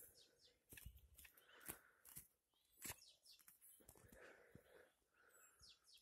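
Near silence broken by faint rustling of grass and scattered soft clicks.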